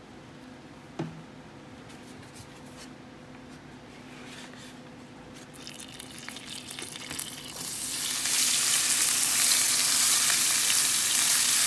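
Raw ground beef sizzling in hot cooking oil in a frying pan: a faint steady hum and a small knock at first, then a dense sizzle that swells as the meat goes in and turns loud and steady about two-thirds of the way in, while a wooden spoon spreads the meat.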